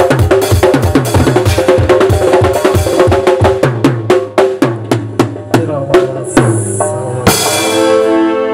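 Live drum kit and doira frame drum playing fast, dense beats over a steady held chord. After about four seconds the strokes thin out into sparser hits, then a final crash with a ringing held chord near the end.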